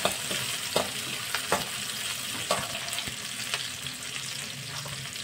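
Chopped onion and capsicum sizzling in a little oil in a kadhai, while a steel spatula stirs them, scraping and tapping against the pan several times.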